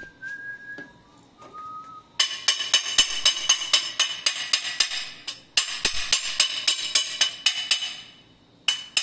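A person whistles a few notes, then a nylon hammer taps rapidly on the steel receiver of a Rossi Gallery .22 rifle, about five blows a second, each ringing; the tapping stops briefly twice. The blows are knocking the receiver loose from the barrel.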